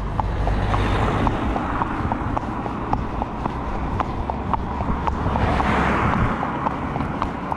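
Cars overtaking a horse and rider close by on a narrow asphalt road: engine and tyre noise with a low rumble swells as one car goes by fast and fades, then a second swell near the end as another passes. The horse's hooves clip-clop on the asphalt underneath.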